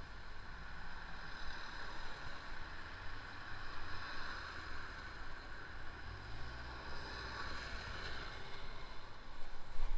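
Street traffic at a city crossing: vehicle engines running steadily, one rising in pitch as it pulls away about two-thirds of the way through, and a box delivery van driving past near the end.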